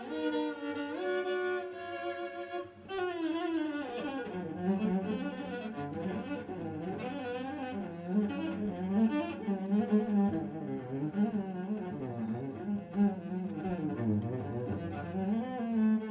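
Cello played with the bow: long held notes at first, then about three seconds in the pitch slides down into a quicker passage of notes with vibrato.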